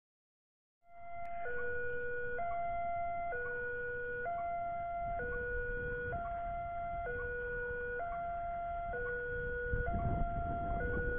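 Level-crossing warning alarm of the 'Alarm Indonesia' type sounding as a train approaches: an electronic two-tone signal that alternates between a lower and a higher note about once a second. It starts about a second in after a brief silence.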